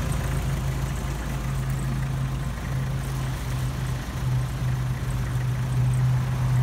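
A 1999 Kubota M9000's four-cylinder diesel engine idling steadily.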